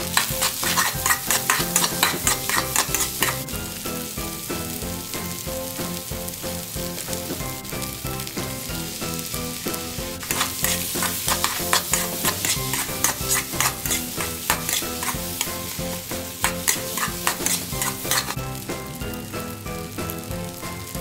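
Egg fried rice sizzling in a hot pan while a spatula stirs and scrapes it. The stirring comes in dense runs of quick clatter, over the first three seconds or so and again from about ten to eighteen seconds in, with steady frying between.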